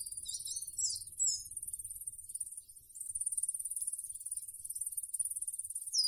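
Insects trilling in a steady, high, continuous chorus, with a few short, high bird chirps in the first second and a half.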